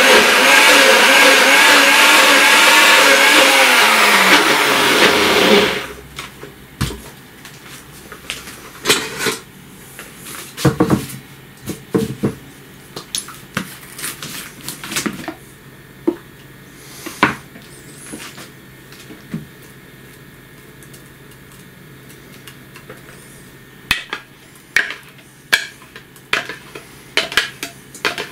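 NutriBullet blender running as it blends sprouted grain and water into a thick dough. The motor's pitch falls just before it cuts off about six seconds in. Then come scattered knocks and clinks of the blender cup and a multi-cooker bowl being handled, with a quick run of taps near the end as the cup is emptied into the bowl.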